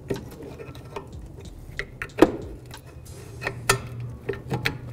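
Metal clinks and scrapes of a small pry bar levering a rear brake caliper off its bracket: one sharp clink about two seconds in, then a run of lighter clicks near the end.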